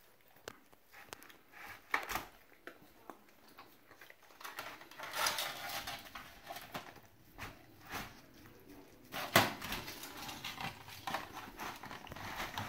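A husky eating a whole rotisserie chicken from a plastic tray: irregular wet chewing, licking and tearing, with scattered clicks and knocks, the loudest a single sharp knock about two thirds of the way through.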